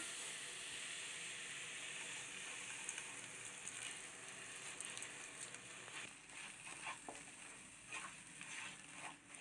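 Faint hiss of hot jaggery syrup on roasted-gram flour in a nonstick pan, fading slowly, with soft scrapes and taps of a wooden spatula stirring the thickening mixture in the second half.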